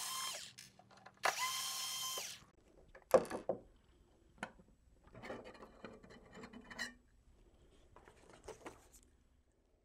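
Black & Decker cordless electric screwdriver whirring in two runs of about a second each as it backs out the mounting screws of a blank panel. Light clicks and knocks follow as the loosened panel is handled and lifted out of the cabinet.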